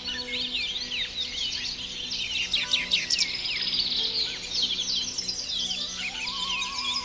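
Calm background music of soft held notes, under a dense chorus of many small birds chirping and twittering. A new held note comes in near the end.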